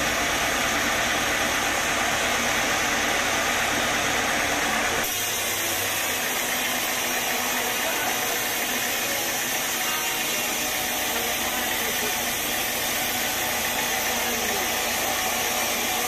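Band sawmill running, its blade cutting lengthwise through a young teak log: a steady mechanical sawing noise. The sound changes abruptly about five seconds in.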